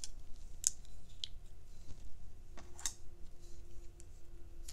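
Long-handled paintbrushes clicking lightly against one another as a handful is sorted through, a few separate clicks spread out.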